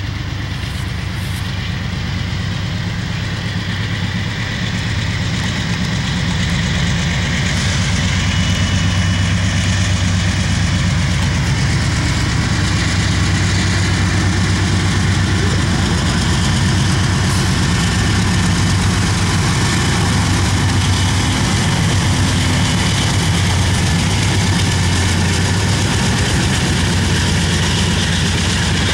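GE C44-9W diesel locomotives at the head of a freight train running as they approach and pass, a low engine drone that grows louder over the first several seconds and then holds steady.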